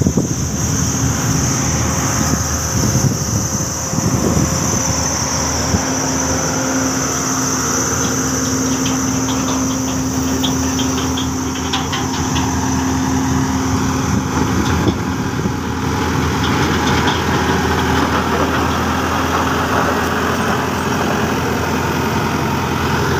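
Motor grader's diesel engine running steadily, a low even engine note with a high whine above it that fades about halfway through.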